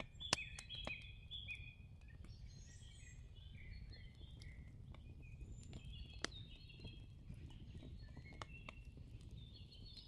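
Faint birdsong: many short chirps and twitters, with scattered soft clicks over a low background hum.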